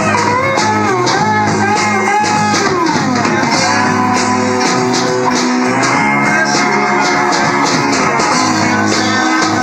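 Teenage rock band rehearsing an original song, recorded on a cheap tape deck: electric guitars, bass and drums with steady cymbal strikes. A lead line slides and bends in pitch in the first three seconds.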